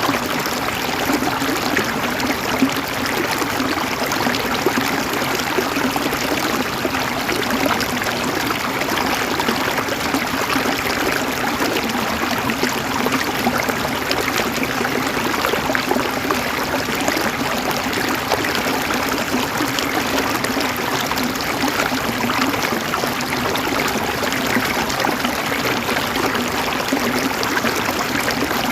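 River water flowing and babbling steadily over stones, a continuous rushing and gurgling with no pauses.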